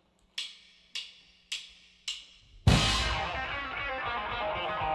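Four sharp count-in clicks about half a second apart, then a live rock band comes in all at once with electric guitar and drums, loud, about two and a half seconds in.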